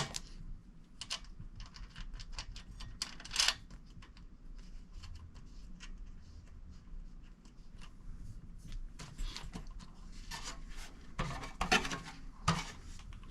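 Hand-assembly noises of a sluice box: scattered clicks and taps of a bolt and wing nut being fitted through the side plate, then a stretch of scraping and rubbing near the end as parts are slid and adjusted.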